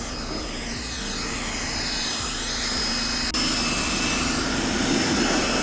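Hyper Tough 1800 psi electric pressure washer running steadily, its motor and pump whirring as it sprays water, with a sudden jump in loudness a little past halfway. The spray is kind of weak, which the owner puts down partly to low household water pressure.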